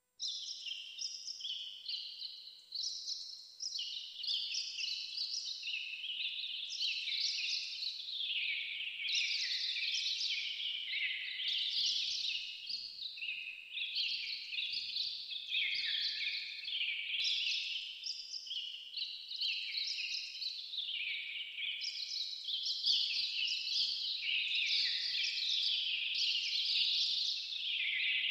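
A dense chorus of small birds chirping and twittering, many short high notes overlapping without a break, starting suddenly.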